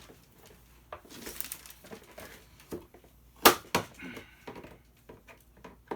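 Scattered clicks and knocks of hand tools against a hard plastic toy being worked apart, with one sharp, loud click about three and a half seconds in.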